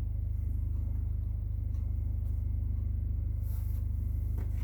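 A steady low hum with a fast, even pulse, with a few faint small clicks and brief rustling noises near the end.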